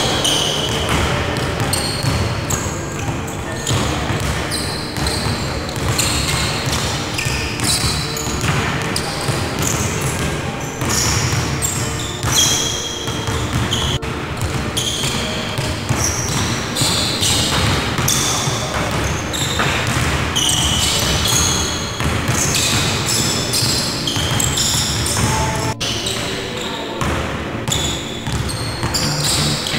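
Basketballs being dribbled on a wooden gym floor, repeated bounces ringing in a large echoing sports hall.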